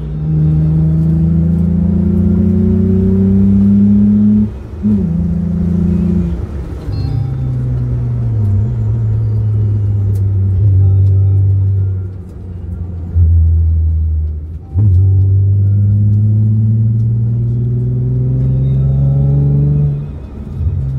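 Hyundai Tiburon GT's V6 engine heard from inside the cabin, pulling through the gears on a winding road. Its note climbs slowly, then drops several times with short dips in level between pulls, and it stays low and steady for a few seconds in the middle.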